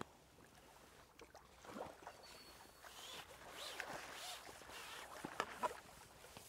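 Faint rustling and clicking of pole-fishing tackle, with light splashing at the water surface as a hooked fish is played and brought in.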